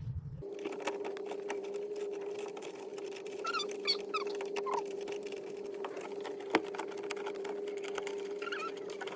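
Plastic interior trim being handled and clipped into place: many quick small clicks and rattles over a steady hum that starts abruptly about half a second in, with a few brief squeaks.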